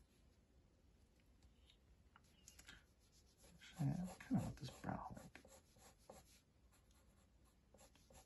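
Pencil drawing on paper: faint, short scratching strokes as eyebrow lines are sketched in. A brief low voice sounds about four seconds in, louder than the pencil.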